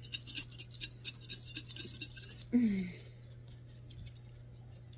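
A small glass jar holding paper alphabet slips, shaken hard by hand: a quick run of clicking rattles, about four or five a second, that stops about two and a half seconds in.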